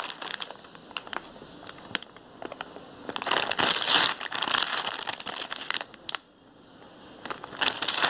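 Plastic food packets crinkling as they are picked up and shuffled, in irregular bursts with sharp crackles. The loudest burst comes about three to four and a half seconds in, with a short lull shortly before the end.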